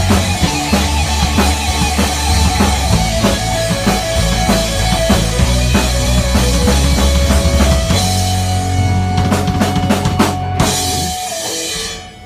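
Small band playing live: drum kit, electric guitars and keyboard over a steady bass line. Near the end one note is held for a few seconds under a run of crashes, and the song stops just before the end.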